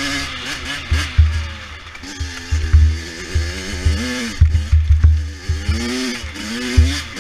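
100cc dirt bike engine being ridden hard, revving up and down again and again as the rider works the throttle and gears. Gusts of low rumble come and go underneath.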